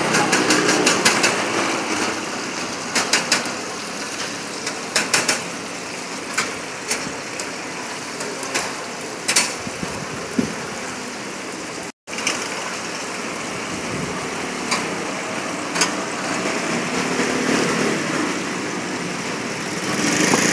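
Hot oil sizzling steadily in a street-stall deep fryer as battered chicken fries, with scattered sharp clicks of metal tongs on the steel racks and trays, a quick run of them about a second in. The sizzle grows louder near the end.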